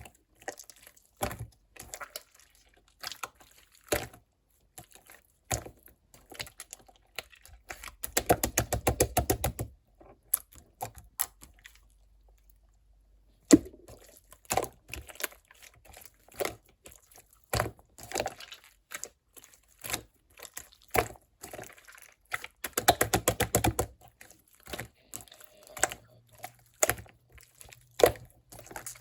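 Hands squeezing and poking soft slime: scattered sharp wet clicks and pops, with two fast crackling runs of clicks, about eight and about twenty-three seconds in, and a brief lull after the first run.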